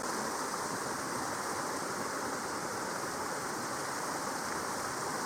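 Steady rushing of a creek waterfall pouring into a pool, an even, unbroken roar of water.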